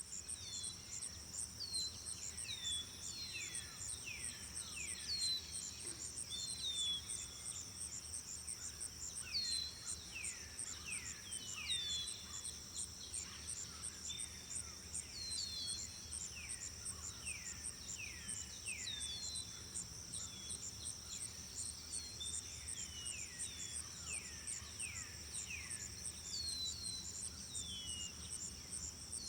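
Nature ambience: insects trilling in a steady high drone with a fast pulsing chirp on top, while birds call throughout in many short, falling whistled notes, often in quick pairs or clusters.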